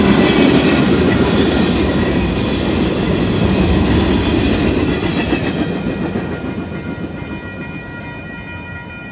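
Freight cars rolling past over a road crossing with their wheels clattering. The sound fades away from about six seconds in as the end of the train goes by. A level-crossing warning bell rings steadily throughout and comes through more clearly once the train has passed.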